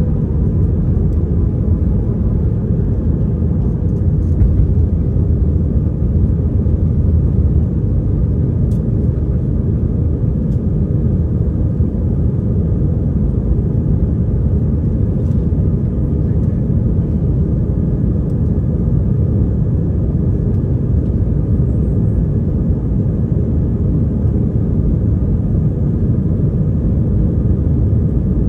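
Steady, loud rumble of an Airbus A319-132's IAE V2500 engines and airflow, heard inside the passenger cabin during departure.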